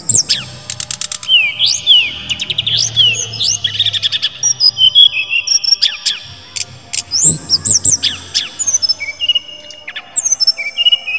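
A brown-chested jungle flycatcher (sikatan rimba dada coklat) singing loudly: a fast, varied run of high whistles that sweep up and down in pitch, held notes, trills and sharp clicks, with barely a break.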